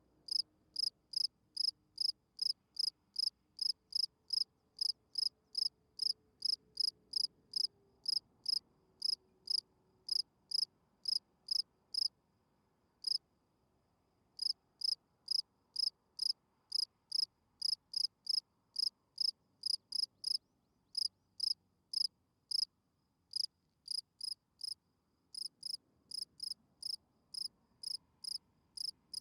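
A field cricket chirping: short, even chirps at about two and a half a second, with a pause of a couple of seconds about halfway through and a few shorter breaks later.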